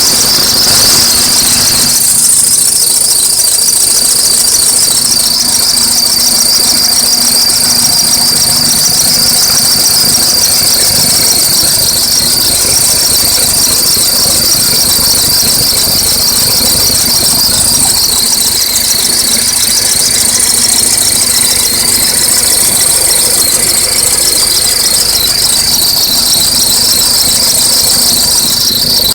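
Rapid, cricket-like chirping squeak from under the hood of an Acura RSX's running four-cylinder engine, high-pitched and steady over a low engine hum. The owner takes it for the accessory drive belts beside the power steering reservoir.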